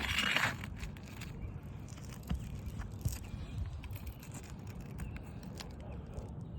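A short scrape right at the start, then scattered light clicks and taps over a low rumble: a flat pry bar working under asphalt roof shingles to pull roofing nails.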